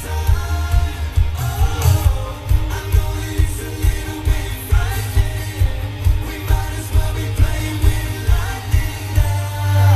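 Live pop band: several male voices singing into microphones over a heavy, steady drum-and-bass beat, electric guitar and keyboards, played loud through a concert sound system.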